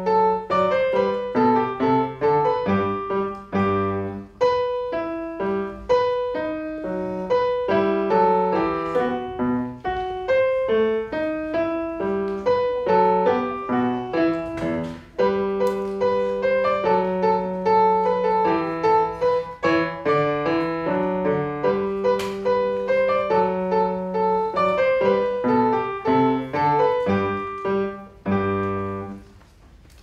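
A Bösendorfer grand piano played solo: a simple, steady-paced melody over a lower accompaniment, closing with a final chord that rings out and fades near the end.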